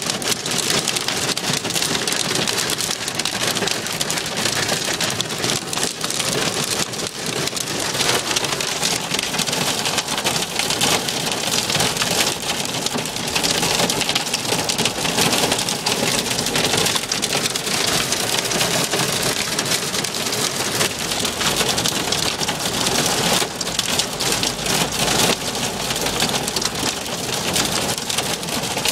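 Heavy rain and hail pelting a car's roof and glass, heard from inside the cabin: a dense, steady clatter of countless small hits.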